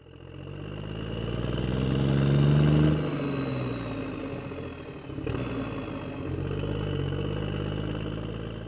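An engine revving up, its pitch rising to the loudest point about three seconds in and then dropping away abruptly. After a sharp cut a little past five seconds it runs again at a steady pitch and fades out at the end.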